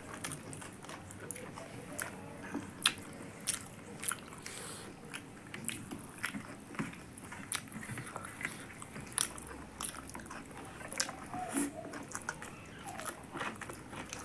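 Close-up eating sounds of people eating rice and curry with their hands: chewing, with frequent sharp, irregular clicks.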